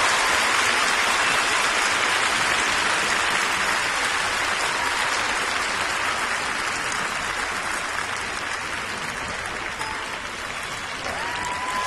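Arena crowd applauding at the end of a figure skating program, a dense steady clapping that slowly dies down.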